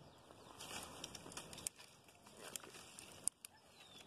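Leaves and branches rustling, with four sharp snaps of dry twigs, the loudest about three seconds in, as someone breaks off a dry stalk. Faint bird chirps near the end.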